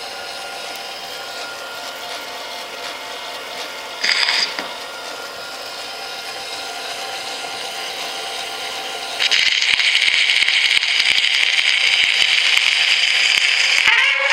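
Columbia BC Higham-amplifier cylinder phonograph running, its mechanism whirring steadily with a short burst of hiss about four seconds in. About nine seconds in, a louder steady hiss sets in: the cylinder's surface noise coming through the amplifier just before the recording plays.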